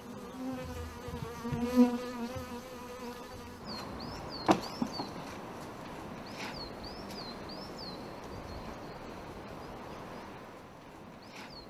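Honeybees buzzing around a hive that a brown bear is raiding. A steady hum for the first three and a half seconds gives way to a thinner buzz, with one sharp knock about four and a half seconds in.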